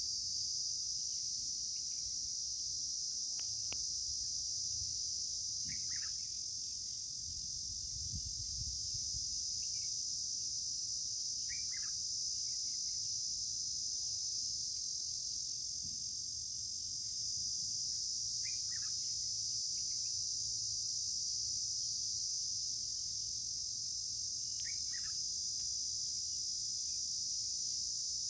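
Steady high-pitched insect chorus ringing without a break, with a bird giving a short falling call about every six seconds and a faint low rumble underneath.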